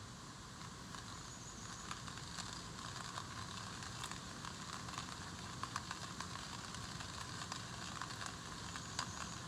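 Fire crackling: a steady hiss with many small sharp pops scattered through it.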